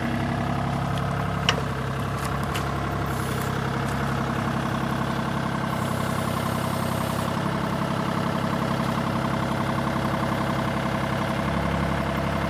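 Kubota U35-4 mini excavator's diesel engine running steadily, with one sharp click about a second and a half in.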